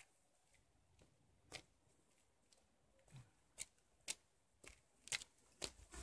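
Near silence broken by faint footsteps on a dirt road: a lone step about a second and a half in, then a steady walking pace of about two steps a second, growing louder as the walker comes close near the end.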